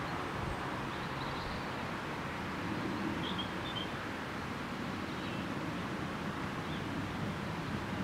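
Steady outdoor background rumble with a few faint, short high bird chirps about three to four seconds in.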